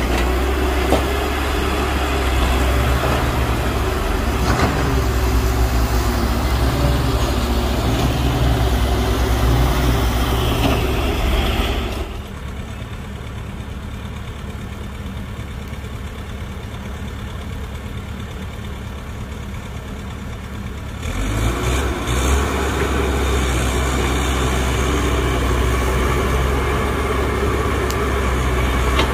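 Diesel engine of heavy earthmoving machinery running steadily with a deep hum. About twelve seconds in, the sound drops noticeably quieter for roughly nine seconds, then comes back at its earlier level.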